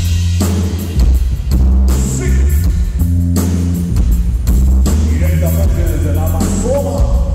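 Live band playing loud through the venue PA during a sound check: a heavy bass line and drums, with a higher wavering melody line joining about five seconds in.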